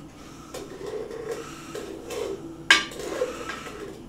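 Wooden spoon stirring butter and sugar in a cooking pot: repeated scraping strokes against the pot, with one sharp knock of the spoon against it a little past halfway.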